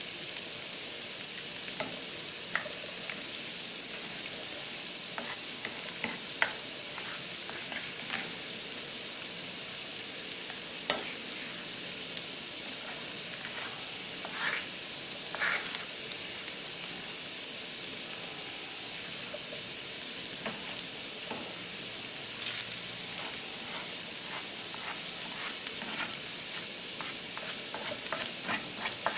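Scrambled eggs and ham frying in a stainless steel skillet with a steady sizzle. A plastic spatula scrapes and taps against the pan now and then as they are stirred.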